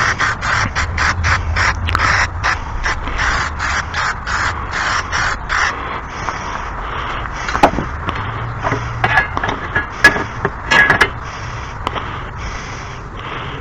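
Metal scraping in quick, even strokes, about four a second, typical of filing a lawn-mower blade. After about six seconds it turns into slower, irregular scrapes and clicks.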